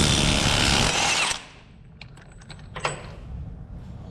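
Impact wrench running in one burst of about a second and a half, spinning off the nut on the Hilux transfer case's front output flange, then stopping; a few light metallic clicks follow.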